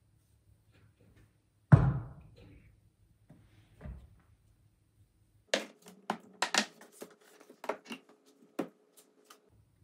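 Metal paint tins handled on a wooden workbench: a heavy thunk a little under two seconds in and a lighter knock, then for the last few seconds a quick run of sharp metallic clinks and knocks over a faint ringing tone as the tins knock together.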